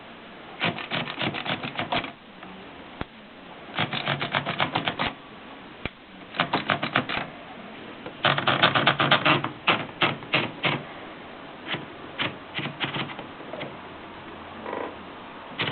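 Consul typewriter being typed on: quick runs of key strikes, several a second, broken by short pauses.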